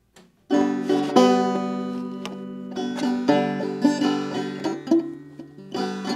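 Banjo played by hand: a loose, unpracticed run of plucked chords and notes that ring on, starting about half a second in.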